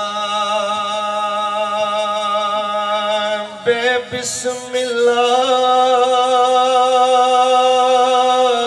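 A man chanting a devotional salutation to the Prophet, drawing out two long sustained notes with a slight waver; the second note is a little higher and comes after a short break about four seconds in.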